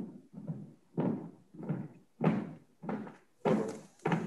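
Marching footsteps of a color guard on a stage floor: a steady cadence of heavy heel strikes about one and a half a second, the squad in step.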